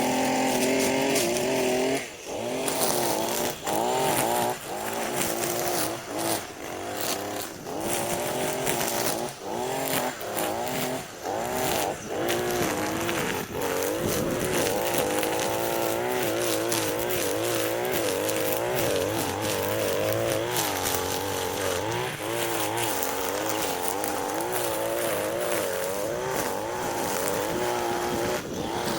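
Small petrol engine of a handheld yard power tool running at high revs, its pitch wavering as it loads and eases off, with repeated brief throttle drops in the first half.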